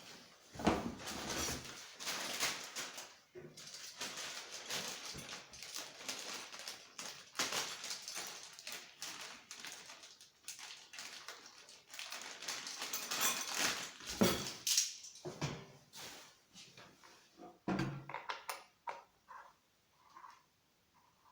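Irregular rustling, crackling and light knocks of things being handled at close range, with no engine running.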